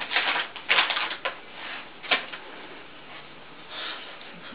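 Plastic treat packet crinkling as a dog noses and mouths at it: crackly rustling bursts in the first second or so, then a single sharp crinkle about two seconds in and a fainter rustle near the end.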